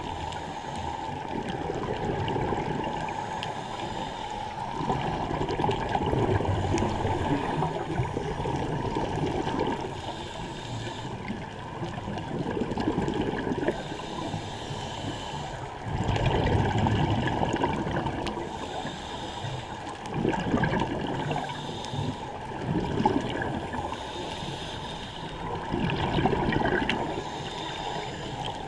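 Scuba divers' exhaled bubbles gurgling underwater from their regulators. The sound is muffled and swells and fades every four or five seconds, with each breath.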